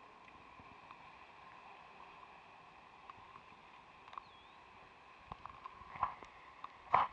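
Faint steady outdoor background with scattered light clicks, then two louder brief knocks or rubs about six and seven seconds in, as of a camera being handled against rock.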